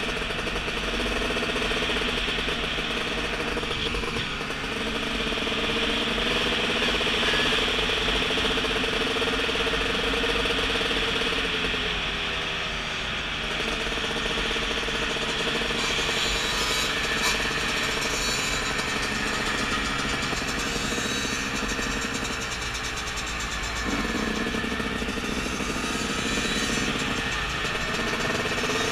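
Yamaha YZ250 two-stroke dirt bike engine running under way, with wind rush. Its note dips and climbs again about midway and again near the end.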